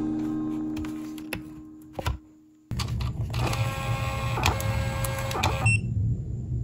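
Background music fades out, then a Rollo thermal label printer runs for about three seconds, a steady whirring feed with clicks, pushing out a label on its first test run, and stops abruptly.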